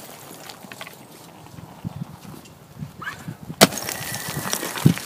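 A slab of ice thrown down onto a frozen puddle, shattering with one sharp, loud crack about three and a half seconds in. Lighter cracks and knocks of ice come before and after it.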